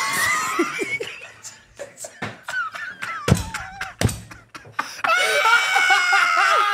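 Men laughing hard: a high, rising shriek of laughter at the start, then a long, loud belly laugh from about five seconds in, with a few sharp knocks in between.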